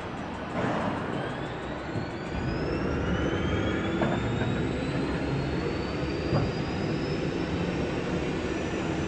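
Jet engines running with a steady roar, their turbine whine rising in pitch over the first few seconds. Two brief knocks sound about four and six seconds in.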